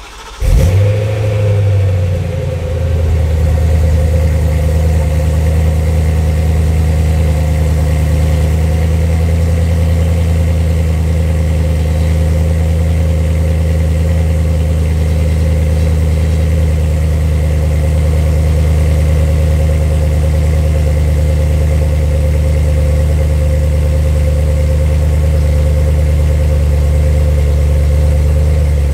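BMW E92 M3's S65 4.0-litre V8 cold-starting through the M Performance exhaust. It catches about half a second in, flares briefly, then settles into a steady cold idle.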